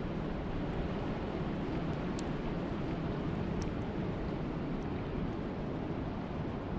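Steady wind and rain: a constant low rush of wind with an even hiss of rain over it and a few faint ticks.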